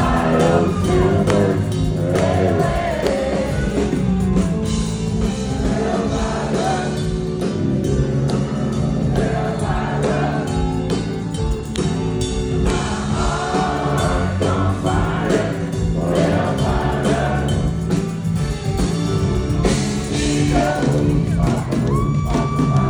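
Live country music from a concert hall: a vocal group singing in harmony over a full band with electric guitar and a steady beat, heard from the audience.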